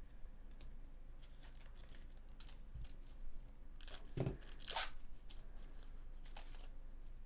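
Foil wrapper of a Bowman Chrome baseball card pack crinkling and tearing open, with scattered crackles leading up to one loudest tear a little past the middle and a few more crackles near the end.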